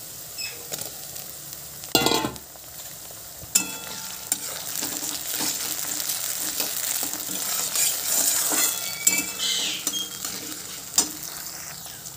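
Sliced onions and chopped tomatoes sizzling in hot oil in a metal wok while a metal spatula stirs and scrapes against the pan, clinking now and then. A sudden loud burst comes about two seconds in, and the sizzle grows denser from about four seconds.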